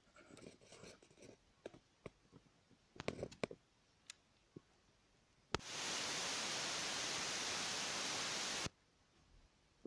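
Scattered faint clicks and rustling at a home breaker panel during an RCD trip test. About five and a half seconds in there is one sharp click, then a steady hiss that stops suddenly about three seconds later.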